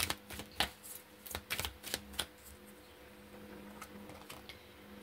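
Tarot cards being handled: a quick run of light clicks and flicks as cards are laid down and drawn from the deck, thinning out about halfway and picking up again with a few more near the end, over a faint steady hum.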